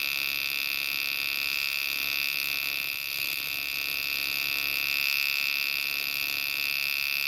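AC TIG welding arc buzzing steadily at 120 amps from a pure tungsten electrode under argon, as aluminum bronze filler is worked across a groove into a cast iron engine block.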